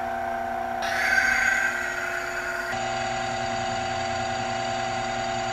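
Electric motor of a benchtop friction testing machine running, spinning a metal wheel against a metal test cylinder lubricated with a dry chain lube: a steady hum with several held tones, a little louder for about two seconds near the start.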